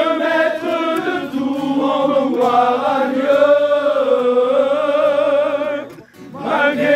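A group of men singing a worship song together, the voices holding long wavering notes, with a short pause for breath near the end.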